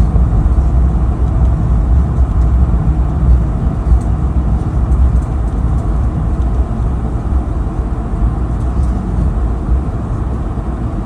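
Steady low rumble inside the cabin of an Airbus A220-300 rolling on the ground after landing: engine and wheel noise with no distinct events, easing slightly toward the end.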